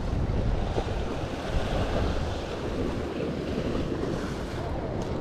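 Surf washing over the rocks at the foot of a sea cliff, a steady rushing noise, with wind buffeting the microphone.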